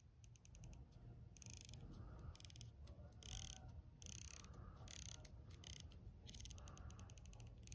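Leupold VX-6HD scope's CDS-ZL2 elevation turret being turned by hand: faint runs of quick, fine detent clicks, each click a quarter-MOA step, in several bursts with short pauses between.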